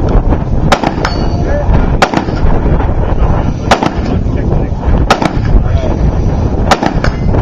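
Gunshots fired on a 3-gun stage, one every second or two with a few in quick pairs, over loud, steady wind rumble on the microphone.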